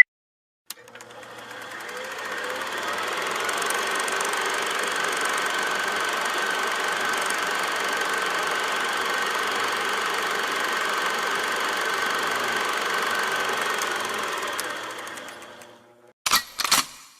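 A motor or engine running steadily with a fast, even rattle and a constant whine, fading in over the first couple of seconds and fading out near the end. Two brief separate sounds follow just before the end.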